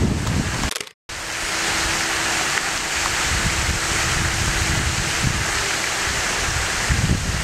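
Wind rushing over the camera's microphone as a steady hiss, cutting out completely for a moment about a second in.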